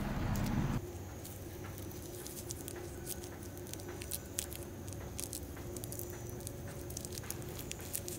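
Faint, irregular small clicks and crackles of fingers prying apart the segments of a ripe Indian mallow (Abutilon indicum) fruit to free its seeds.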